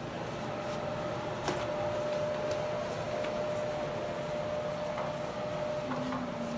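A steady machine hum with one constant whining tone, and a few faint knocks.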